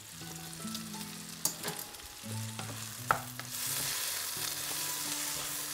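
Sliced mushrooms and red onions frying in olive oil in a non-stick pan, stirred with a wooden spatula: a sizzle that grows louder a little past halfway, with two light knocks of the spatula on the pan.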